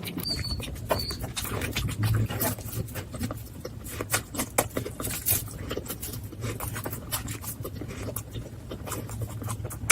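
Close-up eating sounds of someone chewing dumplings (momos): a rapid, irregular run of wet mouth clicks and smacks over a low steady hum.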